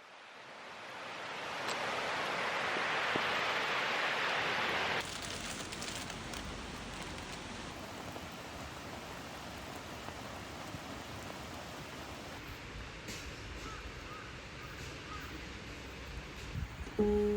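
Steady outdoor hiss, like rain, wind or running water. It fades in over the first few seconds and cuts about five seconds in to a quieter, lower hiss. Music begins right at the end.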